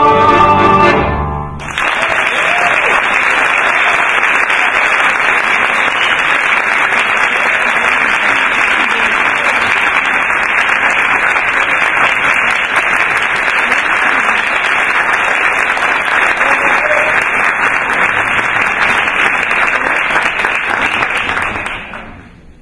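The last notes of a song with accordion and piano end about a second and a half in. An audience then applauds steadily, and the applause fades out near the end.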